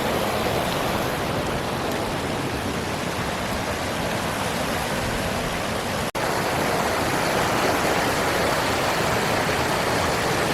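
Steady rush of a fast-flowing forest stream, with the sound cutting out for an instant about six seconds in.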